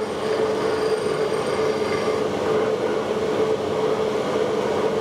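Steady machine rush with a constant hum in it, typical of a forge's electric air blower running.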